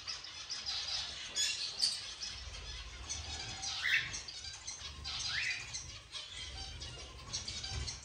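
Mixed small aviary birds chirping and twittering, with two short rising calls about four and five and a half seconds in.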